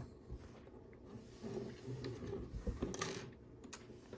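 Small plastic LEGO pieces being handled and pressed onto a model: faint rustling with a few light clicks, the sharpest about three seconds in.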